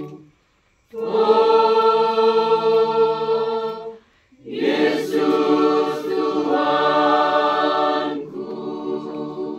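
Church choir singing a hymn unaccompanied, in long held chords of about three seconds each with short breaks for breath between them. The last chord, near the end, is softer.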